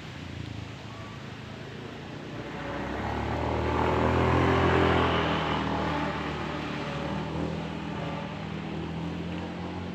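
A motor vehicle passing by: engine noise that grows louder to a peak about five seconds in, then fades.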